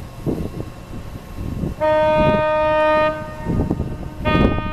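Ship's horn of the Ocean Arrow high-speed catamaran ferry sounding twice: a steady blast of just over a second near the middle, and a second blast starting near the end. Wind rumbles on the microphone underneath.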